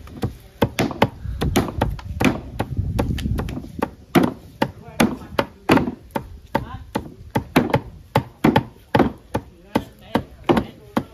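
Knife chopping raw pork on a chopping board in a steady run of sharp strikes, about two to three a second.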